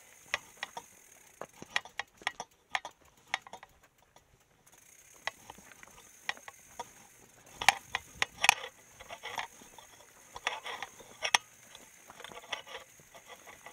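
Irregular clicks and knocks from a mountain bike on rocky ground, with a mechanical ticking like a freehub's ratchet. The sound nearly drops out for about two seconds, and the loudest knocks come about eight seconds in.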